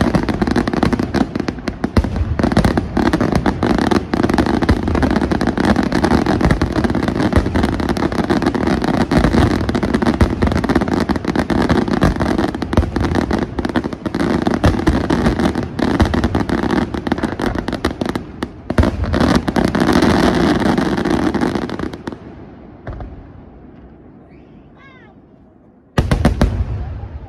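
Fireworks display: a dense barrage of aerial shells bursting in rapid succession over a continuous roar of bangs and crackle. About twenty-two seconds in it dies away to a quieter lull, and a fresh volley of loud bursts comes near the end.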